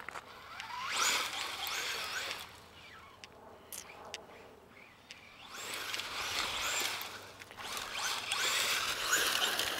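Electric motor of a Traxxas Slash 4x4 RC truck on a 3S LiPo whining up and down in pitch, with its tyres spraying gravel as it accelerates. It comes in two bursts: a short one about a second in and a longer one from about five and a half seconds in.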